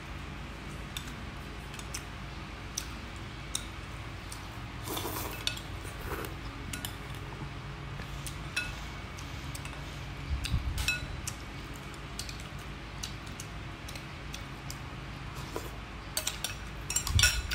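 Metal spoon and chopsticks clinking and scraping against a glass bowl of noodle soup in scattered light taps, with a few duller knocks.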